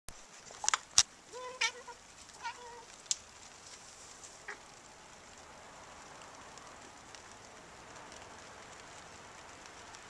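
Handling knocks and clicks on a handheld camera as it is swung around in the first three seconds, with two short pitched calls of about half a second each between them. After that, a faint steady hiss.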